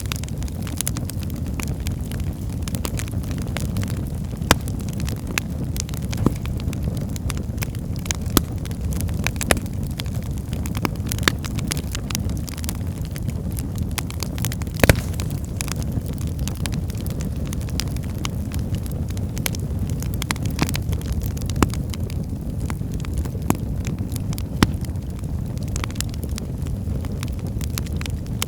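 Wood fire burning in a fireplace: a steady low rumble of flames with frequent sharp crackles and pops from the burning logs, a few louder snaps among them.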